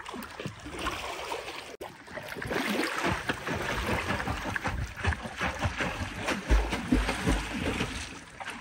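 Water sloshing and splashing close to the microphone around a swimmer floating in an inner tube on a lazy river, with a few low thumps near the end.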